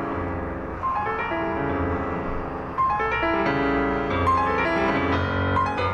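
Piano music: a melody of single notes over held chords, growing louder about three seconds in.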